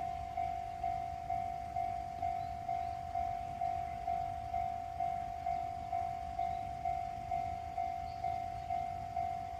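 Japanese railway level crossing's electronic warning bell ringing steadily at about two strikes a second, each clang a single tone that fades quickly.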